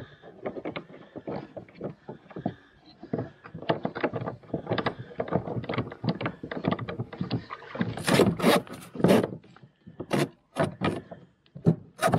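Knocks, clicks and rattles of a kayak seat's metal frame and its clamp hardware being handled against the plastic kayak hull while the seat is unclamped from the gear track. About eight seconds in comes a run of sharper, louder clatters.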